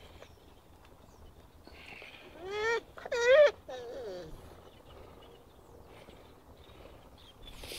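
Two loud animal calls, each about half a second long, rising then falling in pitch, about two and a half and three seconds in. A fainter, falling call follows.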